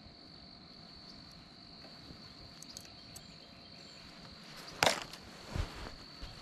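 Insects calling in a steady high-pitched drone. About five seconds in, a short loud rustle and then a low thump break in.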